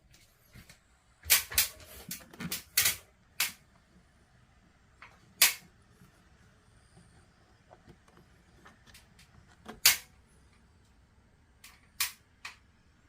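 Irregular sharp knocks and clacks of hard parts being handled and fitted, typical of installing a window air conditioner. There is a quick cluster of them about one to three and a half seconds in, then single loud knocks spaced several seconds apart.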